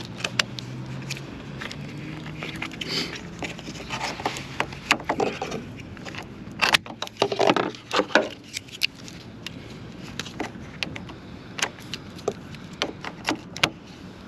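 Jumper cable clamps being handled and clipped onto a car battery's terminals: scattered clicks, knocks and rattles, busiest about four to eight seconds in.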